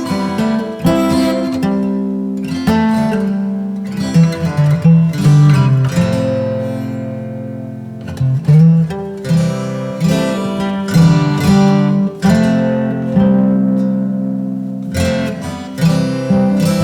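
Background music: strummed acoustic guitar with sustained chords and a recurring strum every second or two.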